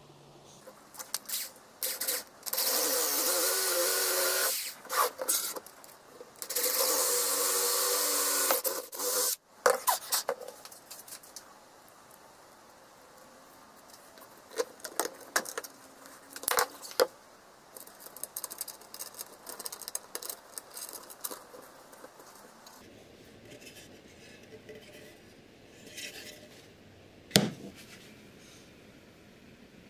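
Cordless drill running in two bursts of about two seconds each, driving into plywood. After that come scattered light clicks and taps of small parts being handled, with one sharp click near the end.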